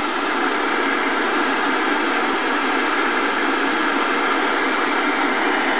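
Steady static hiss from a 1977 RCA 12-inch black-and-white TV's speaker, tuned to a channel with no signal.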